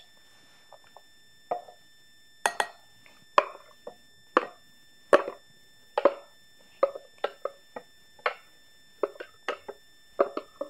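Repeated knocks on a plastic food processor bowl as coarsely chopped salmon is tapped and scraped out of it: sharp, short knocks about once or twice a second, some in quick pairs.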